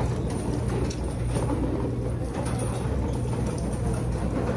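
Restaurant dining-room background noise: a steady low hum with a faint diffuse murmur of the room over it.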